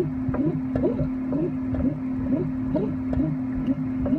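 Harbor Freight 7x10 mini lathe under software control, its drive humming steadily with a short rising chirp about twice a second as an axis is moved.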